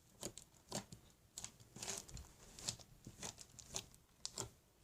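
Slime being squished and worked by hand, giving faint, irregular sticky clicks and pops, roughly two a second.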